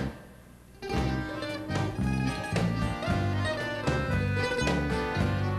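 Live folk band playing an instrumental passage on acoustic guitars, accordion, bass and drums; the band stops dead for under a second right at the start, then comes back in on a steady beat.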